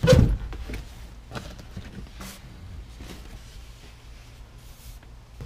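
Rear seat back of a 1966 Mustang being pulled loose and lifted out: one loud thump at the start, then a few faint knocks and rustles as it is handled.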